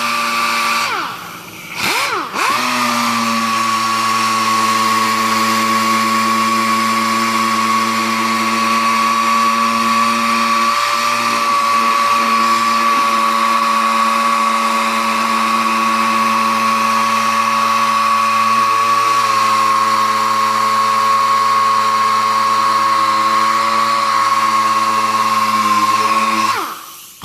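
Air-powered random-orbit palm sander sanding the sealer coat on a wooden box: a steady whine that cuts out briefly twice in the first couple of seconds, then runs evenly until it stops near the end.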